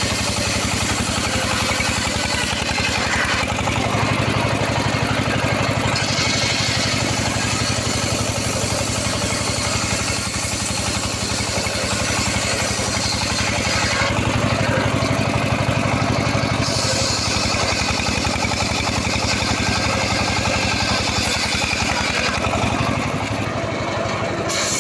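Engine-driven saw running continuously while cutting mahogany wood, its tone changing every few seconds as the load shifts.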